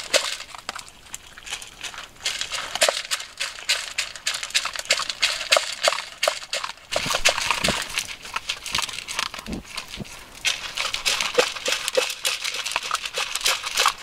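Dogs crunching dry kibble from their bowls: a rapid, uneven run of crisp crunches and clicks, with a few duller knocks about halfway through.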